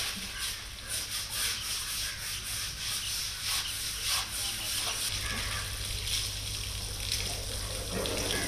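Wet scrubbing of an elephant's skin with a sponge, with water splashing and running from a hose onto its feet. A steady low hum runs underneath and grows stronger about halfway through.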